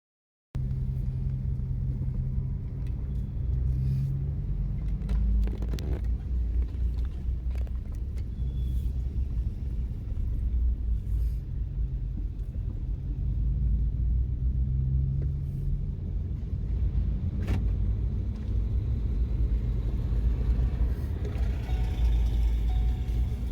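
Car driving slowly: a steady low engine and road rumble that cuts in abruptly about half a second in, with a few light clicks and knocks.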